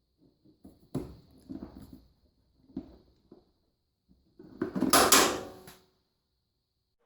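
Washer parts and tools being handled: a few sharp clicks and knocks, then a louder scraping rattle about four and a half seconds in that lasts just over a second.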